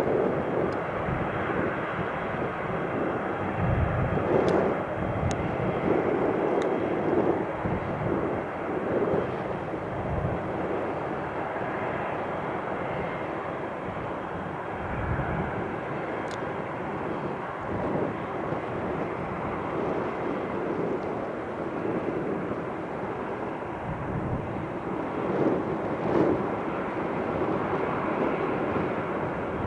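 Boeing 747 freighter's jet engines running as it moves along the ground: a steady, broad engine noise that swells and eases slowly.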